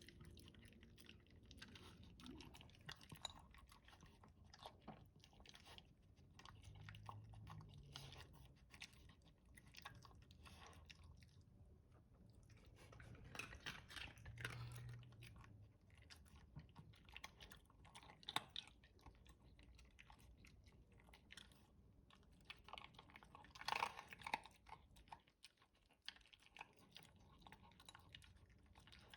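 Dog chewing and crunching his food slowly, in faint, irregular bites; the food has wormer medicine mixed in, which makes him eat slowly.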